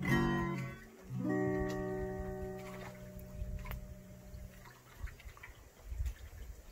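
Acoustic guitar strummed twice, the second chord left ringing and slowly fading away.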